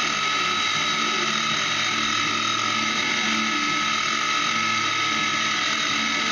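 Milling machine running steadily, its end mill cutting into composite knife-bolster stock: a constant whine with a strong high tone and cutting hiss.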